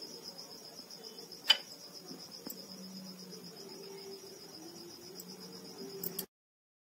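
Cricket trilling steadily in a fast, even pulse, with one sharp click about a second and a half in. The sound cuts off abruptly near the end.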